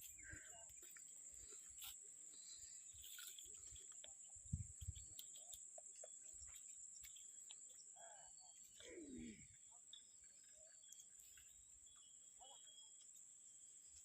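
Near silence: faint outdoor ambience with a steady high-pitched whine, and a faint knock about four and a half seconds in.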